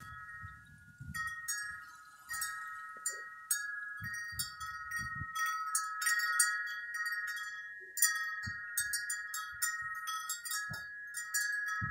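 Wind chimes ringing in gusty wind: a handful of high notes struck at irregular intervals, each ringing on and overlapping the next. Short low rumbles of wind on the microphone come and go.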